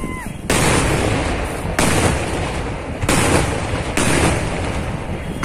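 Kerala temple-festival fireworks (vedikkettu): heavy ground-fired explosives going off in a series of four big blasts about a second apart, each with a long rolling tail.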